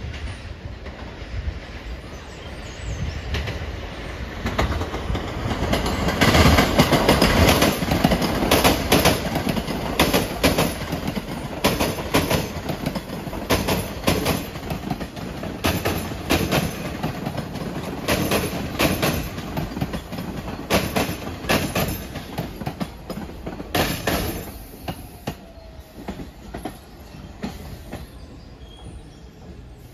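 Pullman-Standard R46 subway train rolling past, steel wheels clicking over the rail joints in a quick, uneven clatter. It builds over the first few seconds, is loudest as the cars come closest, and fades as the train moves off toward the station.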